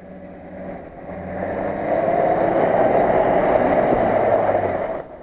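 Nissan Patrol off-roader driving past close through a muddy field, its engine under load. The sound builds from about a second in, stays loud while the vehicle passes, then falls away sharply near the end.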